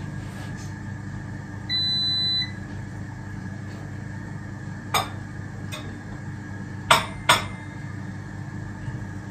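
Cutlery clinking against small ceramic plates as food is set onto them: a few sharp clinks, with two close together about seven seconds in. About two seconds in, a single electronic beep lasting under a second, over a steady low hum.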